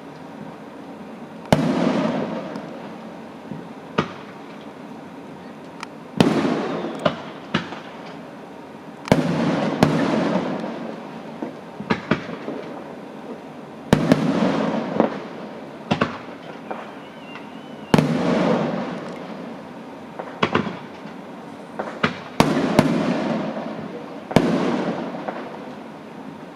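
Fireworks going off: a series of loud bangs every two to four seconds, each trailing off in a long rumbling echo, with smaller sharp cracks in between.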